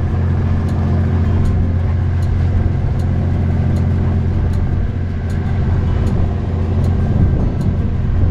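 Steady low hum of a fishing boat's running machinery, even and unbroken throughout, with faint regular ticks above it.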